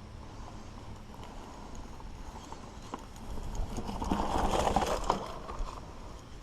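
Mountain bike rolling over rough trail: the bike clatters and rattles over steady low rumble. The clatter swells to its loudest from about three to five and a half seconds in.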